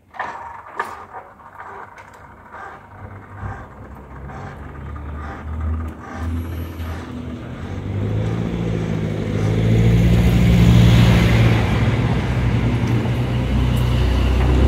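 Road vehicles' engines running and moving off across a level crossing as the barriers lift, growing steadily louder from about halfway. A few knocks come in the first seconds.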